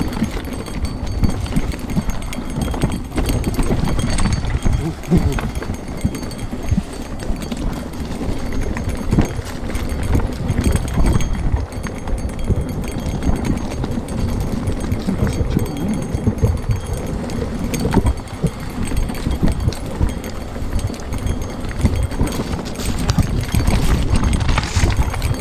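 Mountain bike riding over rocky singletrack: a continuous rumble and clatter of tyres, fork and chain over loose stones, with frequent sharp knocks as the wheels hit rocks.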